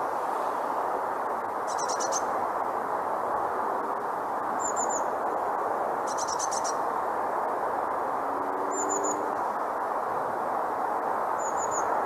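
Blue tit singing: short groups of very high, thin notes alternating with quick trills, repeated every two to three seconds. Underneath runs a steady, louder background hiss.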